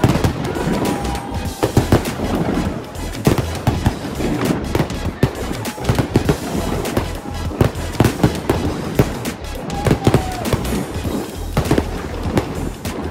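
Aerial fireworks going off in a rapid, irregular run of bangs and crackles, with music playing underneath.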